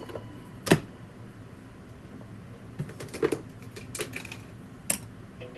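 Makeup palettes and cases being handled and set down: a sharp knock about a second in, then a scatter of lighter clicks and clacks.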